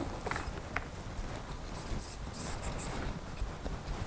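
Cotton swabs scrubbing an AR-15 charging handle: scratchy rubbing in short bursts, with a couple of light clicks near the start.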